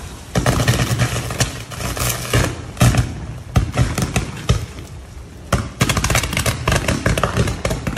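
Downed power line arcing against a fallen tree: an irregular run of loud cracks and pops, several in quick bursts, over a steady sizzle.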